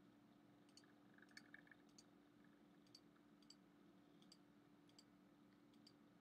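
Near silence: faint computer-mouse clicks at irregular intervals, roughly one or two a second, over a steady low hum.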